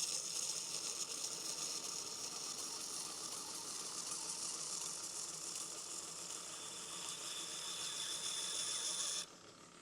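Knife blade being ground on a running 1x30 belt sander: a steady hissing grind that cuts off abruptly about nine seconds in.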